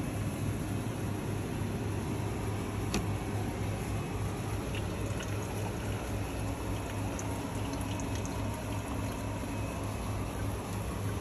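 Steady low hum and hiss, with one sharp click about three seconds in and a few faint light ticks later.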